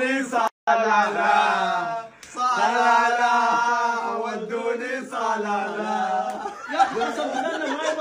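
A man's voice chanting a sung melody in long held notes that bend in pitch, cut off briefly about half a second in and again about two seconds in. Near the end it gives way to laughter and excited talk.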